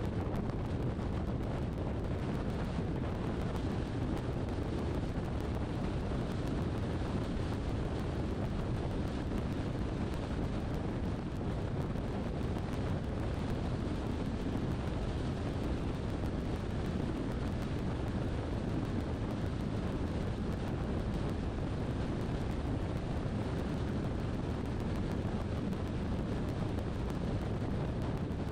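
Steady road and wind noise from a moving car, a low rumble that holds even throughout with no distinct events.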